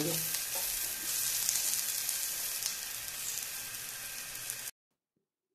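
Chopped onions, garlic, ginger and cashews sizzling in oil in a non-stick pan as they are stirred with a silicone spatula, the onions well browned. The steady sizzle cuts off suddenly near the end.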